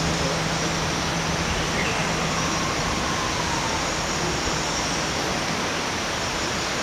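Steady, even rushing background noise with no clear event, and a faint low hum that fades out around the middle.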